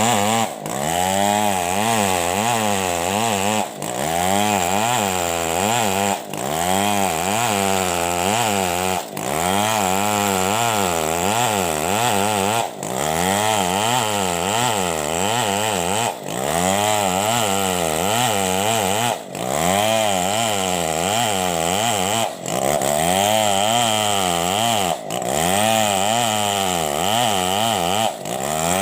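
Stihl 070 large two-stroke chainsaw running hard as it cuts wood, its engine pitch wavering up and down under the changing load. A brief drop in the sound comes about every three seconds.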